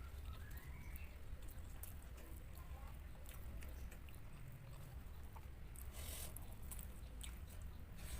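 A person chewing food close to the microphone, with many small wet clicks and smacks from the mouth, over a low steady hum.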